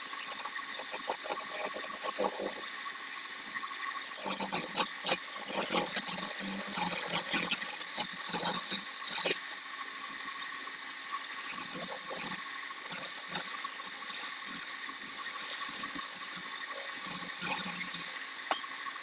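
Wood lathe running with a steady whine while a turning tool cuts the spinning wood in irregular scraping bursts. The cutting is heaviest from about four to ten seconds in.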